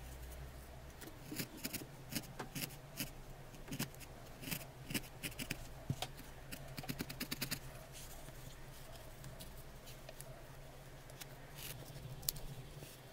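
A felting needle stabbing repeatedly into wool, short crisp pokes that come in quick clusters through the first half and then soften. Near the end, small scissors snip the felt.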